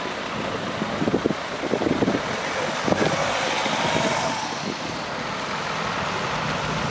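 Cars driving past one after another on a wet road: tyre hiss and engine noise, with wind on the microphone and a few short knocks about a second and three seconds in.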